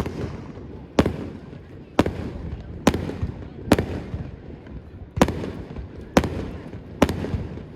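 Aerial firework shells bursting in quick succession, about one sharp bang a second with a rumbling echo after each.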